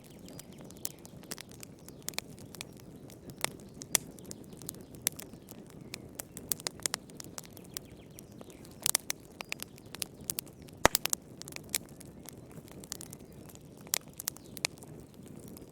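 Wood fire burning in a fireplace: a steady low rumble of flames under irregular sharp crackles and pops, with a cluster of pops about nine seconds in and the loudest single pop about a second later.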